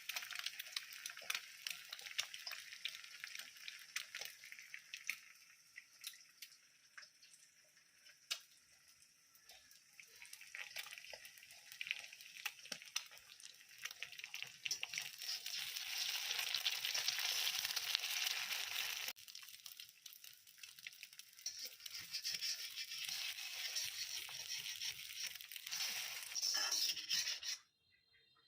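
Food sizzling and crackling as it fries in a pan, with small clicks throughout. It grows louder in the middle, jumps at an edit about two-thirds through, and stops abruptly shortly before the end.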